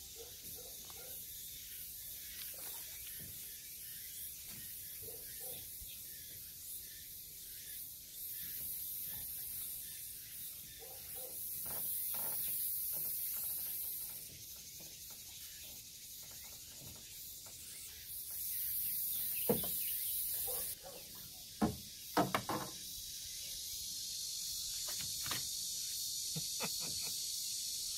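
Cicadas droning, a high-pitched hiss that swells and stops in waves. A few sharp knocks and thumps about two-thirds of the way through are the loudest sounds.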